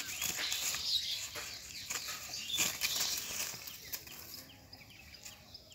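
Irregular rustling and crunching in dry leaf litter as people and a goat shuffle about, dying down near the end, with small birds chirping in the background.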